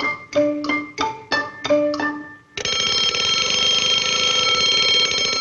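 Cartoon soundtrack music of short, detached notes, about three a second, then a bell starting about two and a half seconds in and ringing continuously with a fast rattle to the end.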